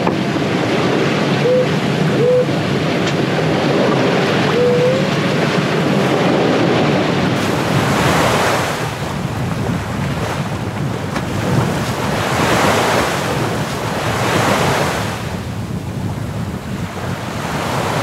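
Sea water rushing and splashing along the hull of a Sabre 36 sailboat as it sails hard upwind through short, choppy seas, with wind buffeting the microphone. In the second half the wash surges about every two seconds as the bow pounds into the waves. A few short squeaks come in the first few seconds.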